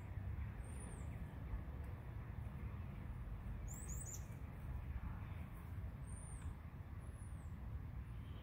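Small songbird giving high, thin, arching chirps: single notes about a second in and near 6 and 7 seconds, and a quick run of several about halfway through. A steady low rumble underneath is louder than the chirps.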